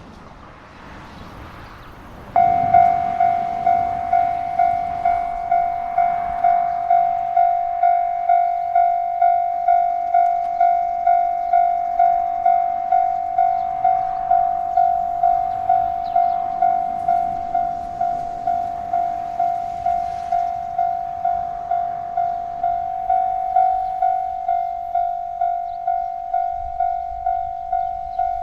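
Railway level-crossing warning bell starting about two seconds in and then ringing steadily, one clear repeated tone about twice a second: the crossing signal warning of an approaching train.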